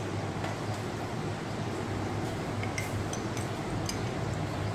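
A metal spoon clinks lightly against a ceramic mug a few times in the second half, each clink ringing briefly, over a steady low hum.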